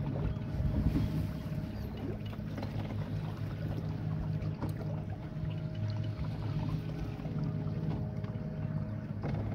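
Donut boat's motor running steadily: a low hum, with a faint higher whine that comes and goes over it.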